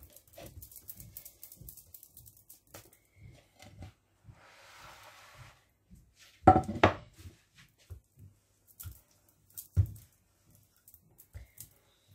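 Hands working thin sheets of msemen dough on a countertop: soft pats and taps, with a brief rustle about four seconds in. Two louder knocks come about six and a half and ten seconds in.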